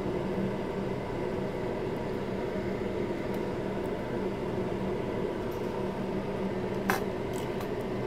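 Steady fan noise with a low hum, and one sharp click about seven seconds in, followed by a few faint ticks.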